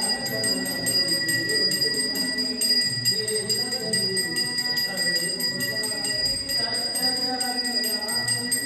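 Puja hand bell rung rapidly and steadily for aarti, its strokes several a second running together into a continuous high ringing.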